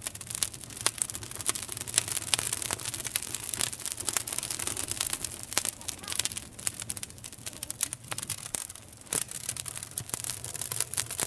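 Wood campfire crackling and popping: many sharp, irregular pops and snaps over a steady hiss of burning.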